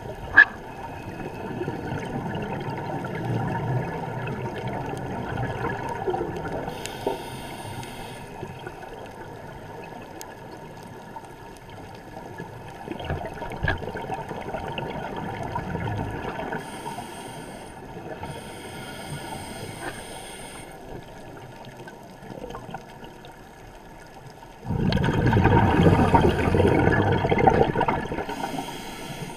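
Underwater water noise picked up by a submerged camera: a muffled, gurgling swish of moving water with a sharp click about half a second in. A louder rush of water comes in suddenly a few seconds before the end.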